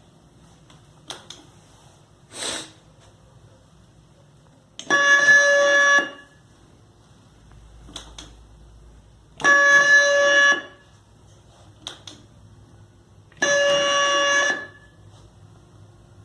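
Electronic quiz buzzer system sounding its buzzer tone three times, each a steady pitched buzz of a little over a second, set off when a contestant's table buzzer is hit; a few short clicks fall between them.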